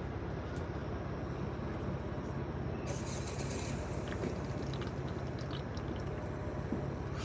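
A Jeep's engine idling, heard from inside the cab as a steady low hum. A short hiss comes about three seconds in.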